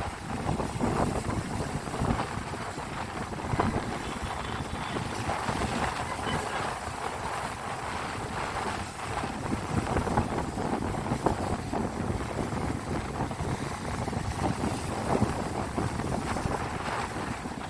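Sea waves washing and breaking, with wind buffeting the microphone.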